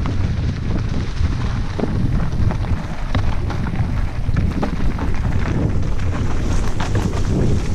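Wind buffeting the microphone of a mountain bike's camera on a fast downhill ride, with a steady rumble and many small clicks and rattles from the bike going over rough ground of leaves and rock.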